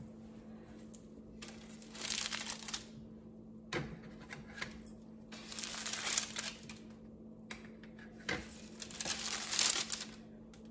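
Metal spatula scraping under cookies on a parchment-lined baking sheet, the paper crinkling in several short bursts, with a couple of light knocks of the spatula against the pan.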